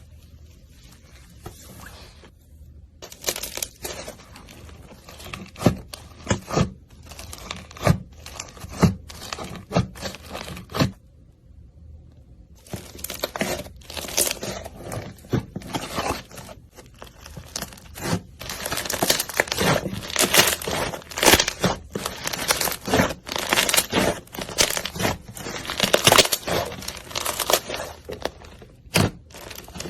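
Slime being squeezed and pulled by hand, crackling and popping irregularly with sharp clicks. There is a short pause, then the crackling grows busier.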